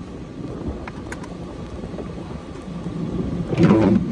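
Cummins diesel engine running with a low, steady rumble that grows louder near the end.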